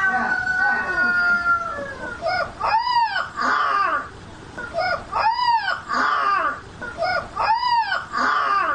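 Pug howling: a long howl sliding down in pitch, then three shorter howls that each rise and fall, about two seconds apart, with small yelps between.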